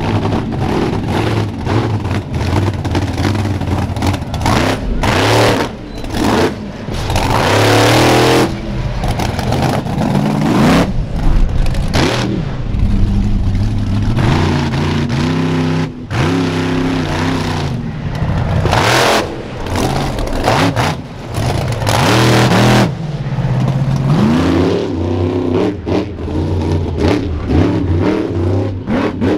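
Monster truck engines revving hard, pitch sweeping up and down in repeated surges of throttle, with several short louder blasts.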